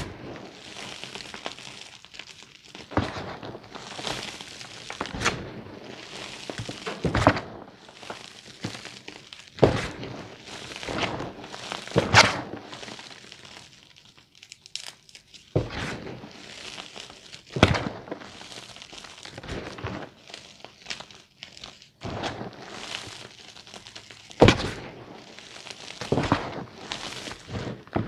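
Hands crushing and crumbling reformed gym chalk: irregular sharp crunches and thuds every one to three seconds, with the soft hiss of powder sifting and falling between them.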